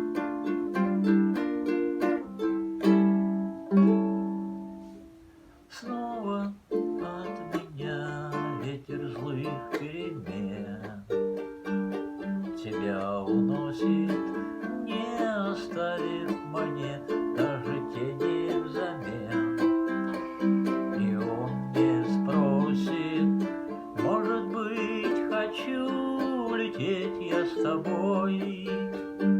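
Ukulele playing an instrumental introduction: loud strummed chords that fade out about five seconds in, then the playing picks up again with a melody over chords.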